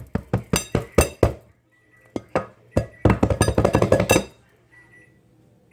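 Sharp, ringing clinks and knocks as a microwave breakfast maker is rapped against a plate to turn out a cooked muffin: a run of separate knocks, then a quick flurry of rapid taps about three seconds in.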